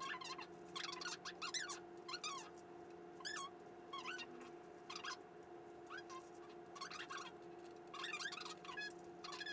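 Scissors cutting paper: short, squeaky snips at an irregular pace of about one or two a second, over a steady electrical hum.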